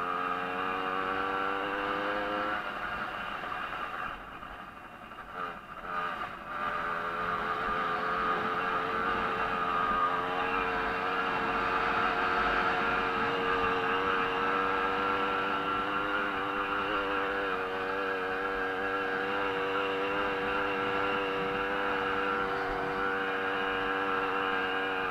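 Small 50 cc two-stroke Jawa moped engine at racing revs, heard close from on board. The pitch climbs in the first couple of seconds, drops off the throttle briefly between about four and six seconds in, then holds high and steady.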